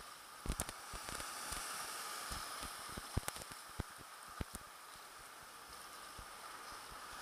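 Small waves washing and splashing in the shallows, a steady hiss, with scattered sharp taps and knocks close to the microphone.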